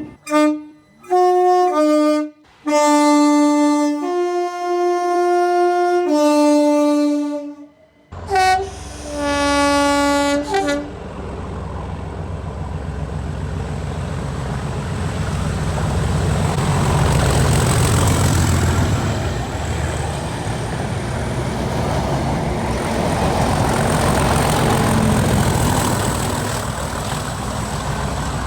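A multi-note air horn sounding chords: a few quick short toots, then longer blasts whose chord changes, and a last blast about ten seconds in. From about eight seconds a heavy vehicle rumble takes over and runs on, swelling and easing, with a faint high whine above it.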